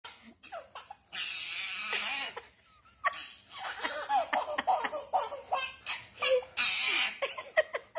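A baby laughing from the belly in repeated short bursts.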